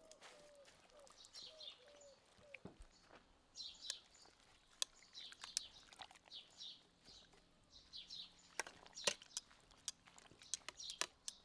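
Small birds chirping in quick repeated phrases, with a low repeated bird call in the first couple of seconds. Several sharp clicks, the loudest about nine seconds in, from metal tongs knocking against the aluminium pot as grape leaves are turned in the water.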